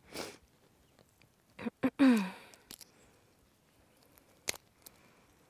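Hands handling and pulling at a hot roasted rabbit carcass on its stick: a few sharp clicks and soft handling sounds, with a short vocal exclamation falling in pitch about two seconds in, the loudest sound.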